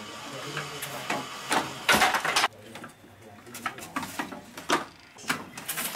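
Wooden handloom being worked: its moving wooden parts knock and clatter in irregular strokes. The loudest burst of clatter comes about two seconds in, with single sharper knocks through the rest.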